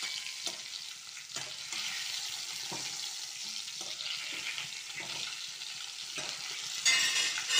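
Whole marinated chicken frying in hot oil in a metal kadai, a steady sizzle broken by short scrapes and knocks of a spatula against the pan as the chicken is turned. The chicken is nearly cooked through, and the sizzle flares louder near the end.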